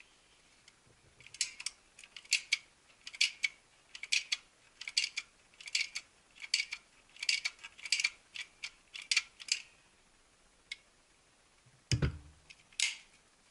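Hand caulking gun pumped about eleven times, each squeeze of the trigger a double click as the plunger rod ratchets forward to push urethane window weld out of the tube. The gun is a cheap one whose broken part was welded back on, and it feeds poorly, which the owner blames on having welded it upside down. Near the end, a single thump as the filled engine mount is set down on the bench, then one more click.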